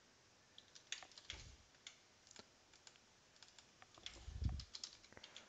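Faint, irregular keystrokes on a computer keyboard as short text is typed in, with a couple of soft low thumps, about a second in and again just past four seconds.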